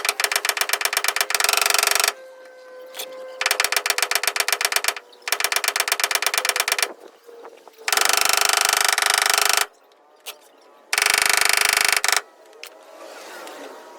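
A rapid-fire tapping tool hammering on the sheet metal of a truck's dented quarter panel in bursts of several seconds, the taps coming so fast that the last two bursts run together into a steady rattle. This is the tap-down stage of a paintless dent repair, levelling the metal around the dent.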